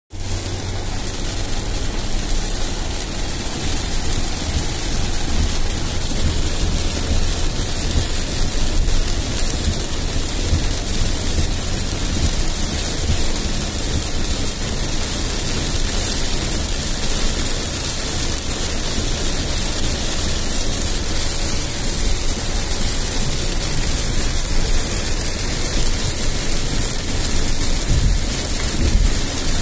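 Heavy rain falling on a moving car's roof and windshield, heard from inside the cabin as a steady hiss over the low rumble of the car on the wet road.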